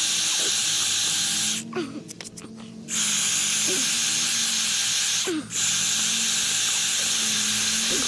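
Wire wheel brush spinning on a drill, grinding the surface of freshly poured concrete to erase initials, a steady harsh hiss. It cuts out for about a second just before the two-second mark and briefly again a little after five seconds.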